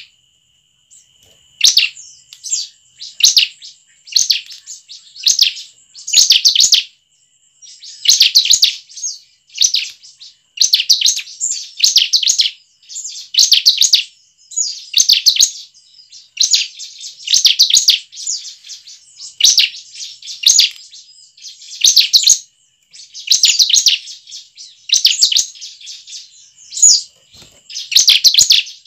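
Bar-winged prinia (ciblek) singing: short phrases of rapid high chirping, repeated about every one to two seconds, over a faint steady high-pitched tone.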